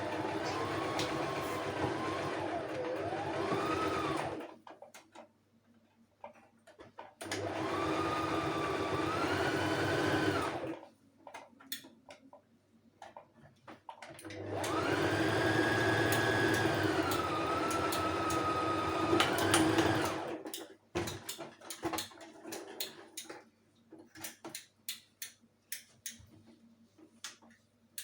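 Electric sewing machine running in three bursts of a few seconds each, its motor whine shifting in pitch as the speed changes. The runs stop about two-thirds of the way through, and scattered light clicks and ticks follow.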